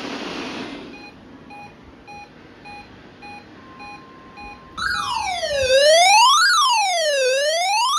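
Electronic emergency-alert tones from a weekly alert-system test broadcast. A run of short beeps comes about twice a second, then about five seconds in a loud siren-like tone starts, wailing up and down about once every second and a half.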